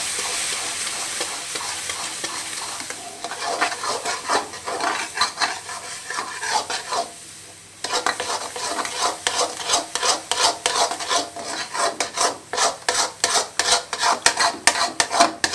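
Egg, milk and sugar batter sizzling in hot ghee and roasted gram flour in a metal kadhai while a metal spoon beats it hard so no egg lumps form. The sizzle fades over the first few seconds; after a brief pause about eight seconds in, the spoon scrapes the pan in quick, regular strokes.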